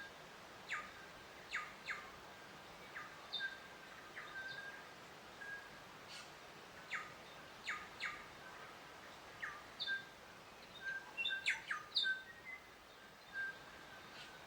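Songbirds chirping: many quick down-slurred chirps and short whistled notes, scattered irregularly, over a faint steady hiss of outdoor ambience.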